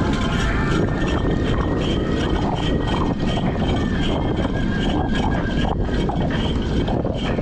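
Steady wind rush on a GoPro's microphone and tyre noise from a cyclocross bike riding fast on wet tarmac.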